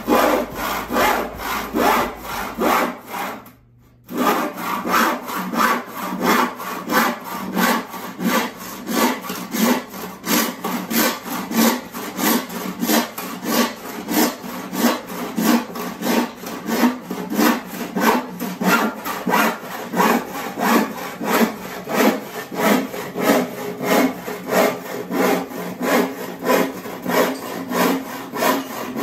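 Wooden-handled handsaw cutting through a pine 1x12 board in steady, even strokes, about two a second. There is a brief break about three and a half seconds in.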